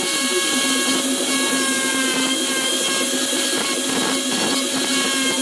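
Angle grinder running steadily with a motor whine and a grinding hiss as its disc shapes a rebuilt tooth on a plastic gear.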